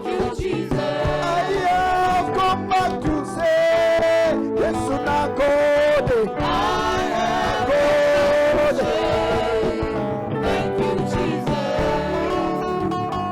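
Gospel music: singing with held, bending notes over instrumental backing with guitar and a steady beat.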